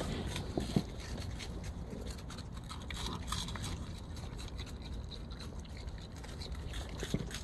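Raccoons chewing food: a steady run of small crunches and clicks, with a few soft knocks.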